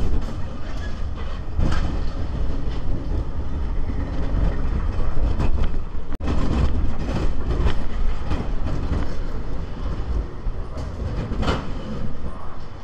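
Spinning roller coaster car running along its steel track: a continuous loud rumble of the wheels with rattling clacks through the turns. The sound cuts out for an instant about six seconds in.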